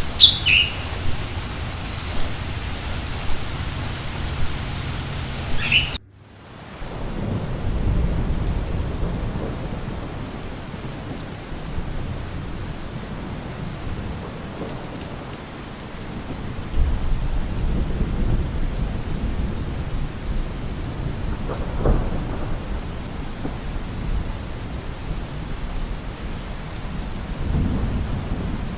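Steady rain with rolling thunder swelling up several times. A few short high chirps come in the first seconds, and the sound cuts off abruptly about six seconds in before the rain and thunder start again.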